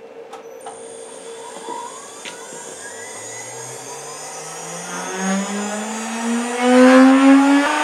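CNC router spindle motor spinning up to 18,000 RPM without cutting. Its whine rises steadily in pitch and grows louder over several seconds, then levels off near the end, with a thin, steady, very high whine above it throughout.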